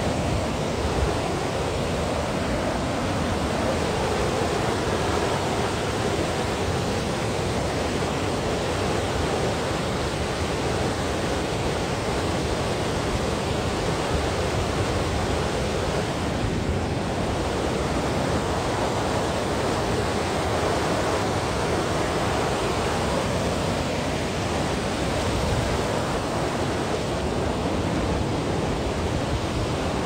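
Whitewater cascade of Nymph Falls rushing over rock ledges: a steady, unbroken roar of falling water.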